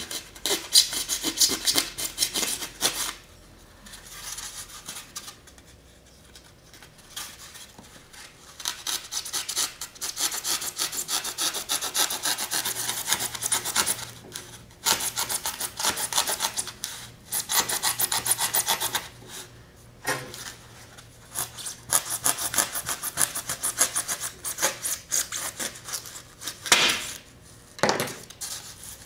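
Small hand saw cutting through a block of foam: runs of quick back-and-forth rasping strokes, broken by several short pauses.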